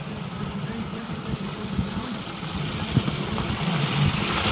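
Small go-kart engine running, its sound growing louder as the kart drives up close, with a hiss of tyres on gravel building near the end.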